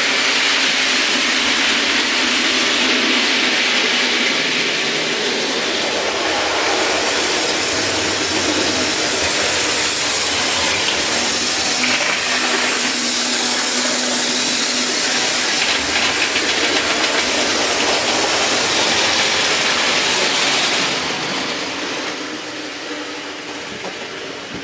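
OO gauge model Class 45 diesel locomotive running in along the track: a steady, loud hiss-like running noise over a faint low hum, easing off over the last few seconds.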